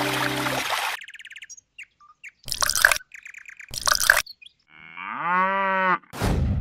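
Music stops about a second in, followed by a few high bird chirps and two short bursts of water being poured. Near the end a cow moos once, a call that rises and then holds steady, dubbed in as a sound effect, and a short noisy burst follows.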